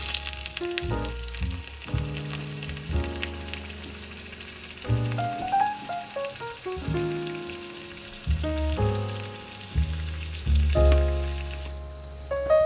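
Battered tempura frying in hot oil in a miniature pan: a steady sizzle with fine crackles that stops shortly before the end, over background music.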